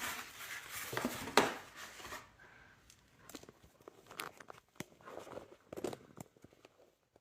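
Paper being handled: rustling and crinkling, with one sharp tap about a second and a half in, then lighter scattered clicks and rustles.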